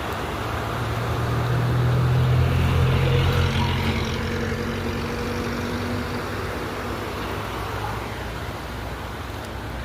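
River water rushing steadily, with a motor vehicle's engine hum swelling about a second in and fading away by about six seconds, as if it passes by.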